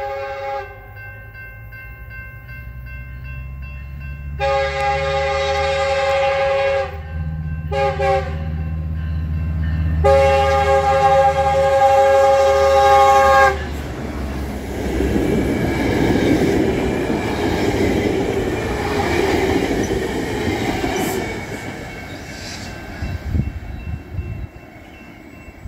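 Metrolink diesel passenger train sounding its multi-note air horn for a grade crossing: the tail of one blast, then a long blast, a short one and a final long one, over a rising diesel engine rumble. From about 14 s in the horn stops and the train passes with a loud rush of engine and wheel noise that fades toward the end.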